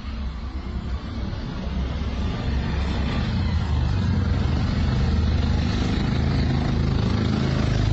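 A motor vehicle's engine running steadily, getting gradually louder.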